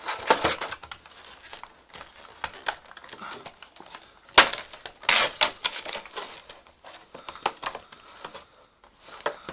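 Clear plastic blister packaging and cardboard box being handled and pulled apart: irregular crackling and clicking of stiff plastic, with one sharp click about four seconds in.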